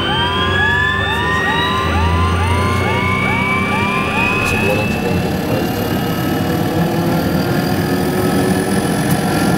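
Jetstream 31's Garrett TPE331 turboprop spooling up during engine start, heard from the cabin beside it: a whine rising steadily in pitch as the propeller gathers speed, over a low hum. A quick repeating chirp, about three a second, runs with it and stops about halfway through.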